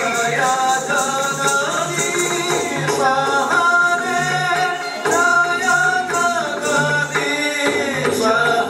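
Odissi dance music: a voice sings a melodic line over steady percussion accompaniment.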